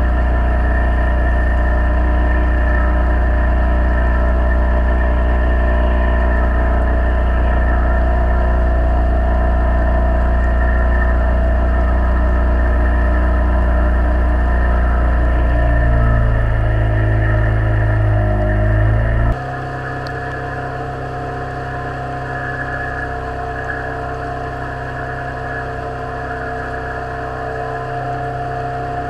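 Motorboat engine running steadily; a little past halfway its note rises as it speeds up. About two-thirds through, the sound cuts abruptly to a quieter, steady engine drone.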